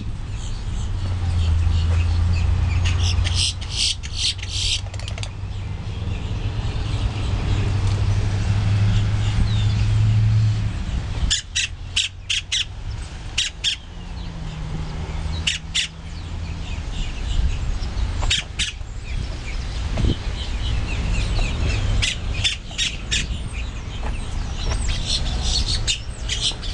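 Boat-tailed grackles calling: short runs of sharp, dry clicking notes every few seconds. A low steady drone sounds under the first ten seconds or so.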